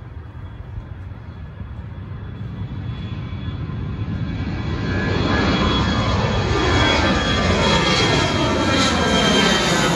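Jet airliner climbing out after takeoff and passing low overhead. Its engine roar swells for the first few seconds, then stays loud, with a sweeping, falling whoosh as the plane comes over.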